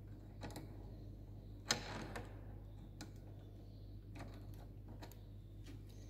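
Light metallic clicks and ticks from a screwdriver working out the handlebar bar-end weight on a BMW K1600 GTL. There is one sharper clack about a second and a half in, followed by a brief scrape.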